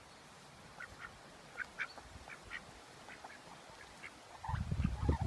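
Indian runner ducks giving short quacks again and again while foraging. About four and a half seconds in, a louder low rumbling noise sets in.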